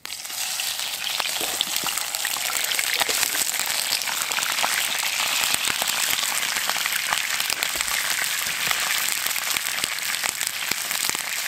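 Pieces of brook trout sizzling and crackling in hot oil in a frying pan over a campfire. The sizzle starts suddenly as the fish goes into the pan, then keeps up steadily with many small pops.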